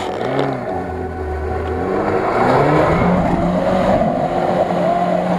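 Lada Niva's four-cylinder engine revving hard under load as it churns through deep mud. The pitch dips and rises twice in the first two seconds, then climbs and holds high, over a steady wash of noise from the spinning wheels and mud.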